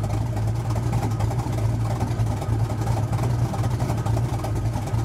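Supercharged small-block Chevy V8 idling steadily, heard from inside the truck's cab.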